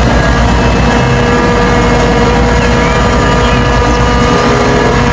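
Dump truck engine running steadily, a loud, dense rumble with a steady hum over it.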